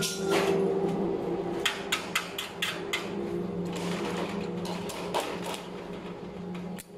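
Stick arc welder humming steadily, with a quick run of sharp clicks and taps about two seconds in and another near five seconds, as the electrode is worked against a steel door bracket.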